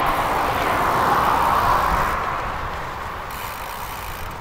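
Steady rushing noise of a bicycle ridden at about 20–24 km/h, with wind over the action camera's microphone and the tyres rolling on the path. It eases a little after about two seconds.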